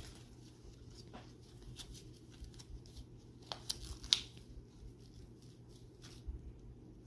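Soft, scattered handling noises from rubber-gloved hands picking up a small plush toy and moving plastic capsule pieces: light rustles and taps, with a sharper click about four seconds in.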